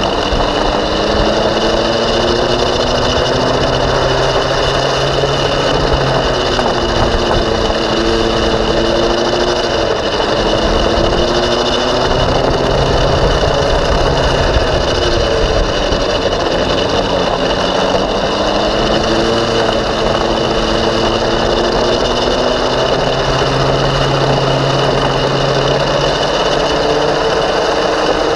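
Racing go-kart engine running at speed, heard from on board. Its pitch climbs and drops several times as the kart accelerates and slows around the track, over a steady rushing noise.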